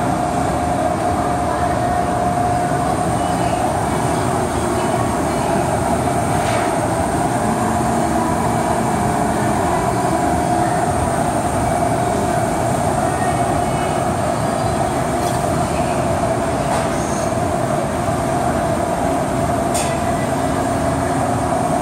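CNC turret punch press standing powered up and running without punching: a steady, loud mechanical hum with a constant mid-pitched whine. A few faint clicks come through it.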